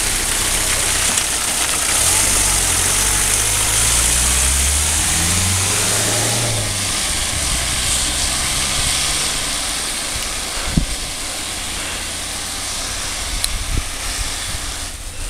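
Support van's engine pulling away uphill, its low note climbing in steps over a few seconds, over a steady hiss of rain and wet road. A single sharp knock about two-thirds of the way through.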